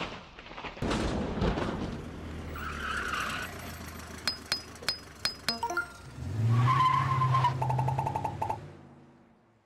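Sound effects for an animated logo: a vehicle arriving with a squeal, a run of about six sharp metallic clinks, then a low vehicle hum with a rapid electronic beeping, fading out near the end.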